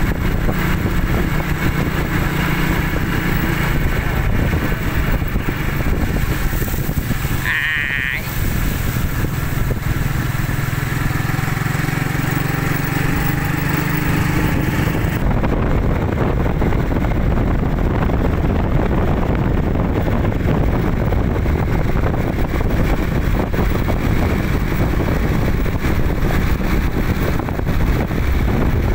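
Small motorcycle running at road speed, its engine a steady hum under heavy wind noise on the microphone. About eight seconds in there is a brief high-pitched sound, and in the second half the engine note is mostly buried in wind and road noise.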